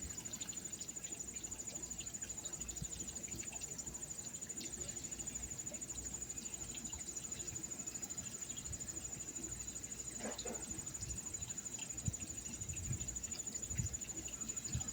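Insects, crickets by their call, trilling steadily in a continuous high-pitched, rapidly pulsing chirr, over a low rushing noise.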